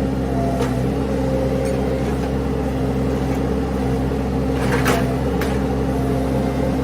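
An engine running steadily at an even speed, with a few short knocks or rattles over it, the loudest about five seconds in.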